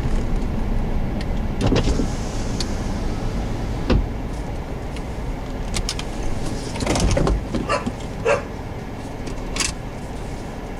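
A vehicle running with a steady low rumble, broken by a few sharp clicks and knocks, with a cluster of them about seven to eight seconds in.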